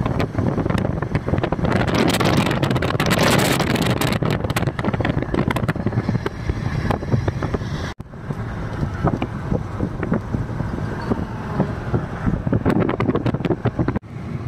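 Wind buffeting a phone microphone over the steady rush of road noise from a car moving at highway speed, heard from inside the car. The sound drops out for an instant twice.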